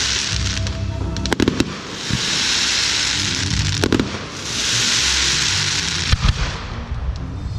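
Aerial fireworks display: three sharp shell bangs about two and a half seconds apart, each preceded by a loud hiss lasting a second or two.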